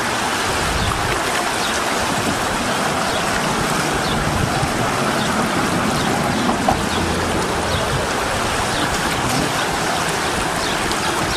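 Steady, even rush of the flood-swollen Santa Cruz River's muddy water flowing fast.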